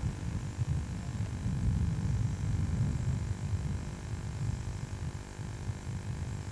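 Wind buffeting the camcorder microphone: a gusting low rumble, over a faint steady hum.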